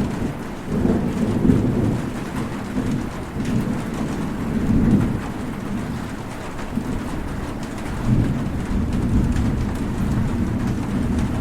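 Heavy rain falling steadily, with low rolling thunder that swells and fades several times.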